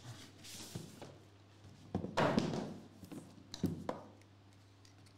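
Cardboard boxes being handled as the outer box is opened and the jersey box inside is lifted out: a sliding scrape about two seconds in, then a couple of light knocks.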